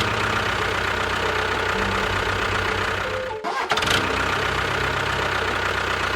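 Small engine running steadily with an even low chugging, cut off briefly about halfway through before it carries on.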